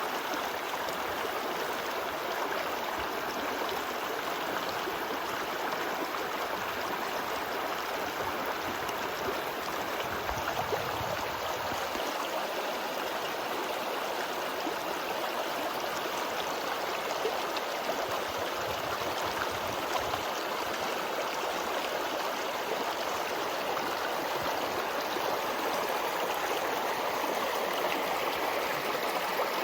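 Mountain stream flowing, a steady continuous rush of water.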